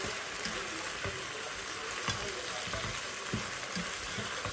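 Chicken in a spiced tomato masala sizzling in a pan, with a spatula stirring it and knocking against the pan every so often.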